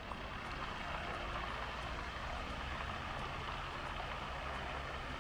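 Steady outdoor background noise: an even, low rush with no distinct events.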